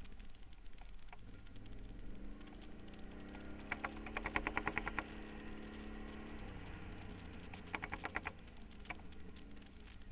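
Quad bike engine heard from a camera mounted on the quad: the revs rise about two seconds in, hold for a few seconds, then drop away. Two bursts of rapid, even clicking rattle come over it, the first while the revs are held high.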